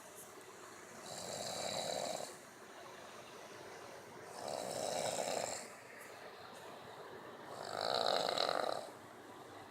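A person snoring loudly: three snores about three and a half seconds apart, each lasting about a second, with quieter breathing between.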